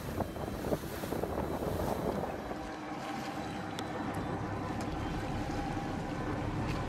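Wind buffeting the microphone over water and motor noise from a boat out on the sea. About two and a half seconds in this gives way to a calmer steady hum holding two faint tones, with a few light ticks.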